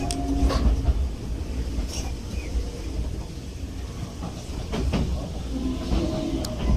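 Enoden electric train running into Gokurakuji station: a steady low rumble of wheels on rail with a few sharp clicks from the track. Near the end a faint tone sets in and slides slightly downward.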